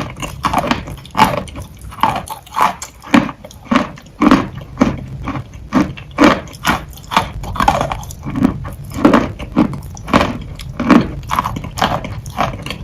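Wet, soupy chalk being bitten and chewed close to the microphone: a continuous run of irregular crunches, about two a second.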